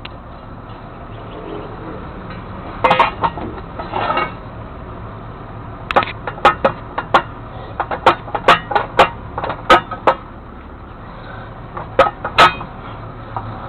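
Metal striking metal: a series of sharp, ringing clanks and clinks, bunched in a quick run in the middle and a couple near the end, over a low steady hum.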